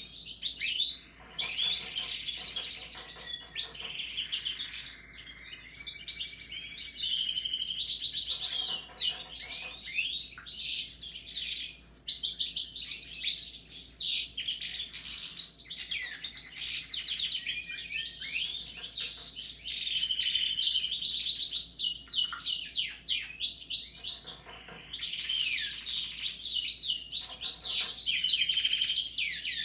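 Caged goldfinches and a Raza Española canary singing together: a nearly continuous, fast twittering warble with trills and short buzzy rattles, easing briefly near the end before picking up again.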